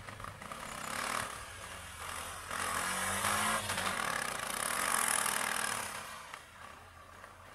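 Vehicle engines running on the road. The sound swells about two and a half seconds in and fades near the end.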